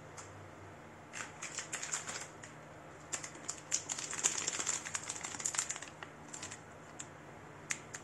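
Handling noises from unboxed computer parts and their packaging: rapid small clicks and crinkles in two clusters, about a second in and again from about three to six seconds, then a couple of single clicks.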